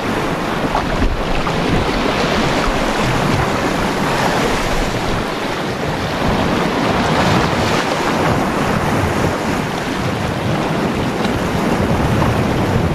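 Sea surf washing over shore rocks, mixed with wind buffeting the microphone: a steady rush of noise.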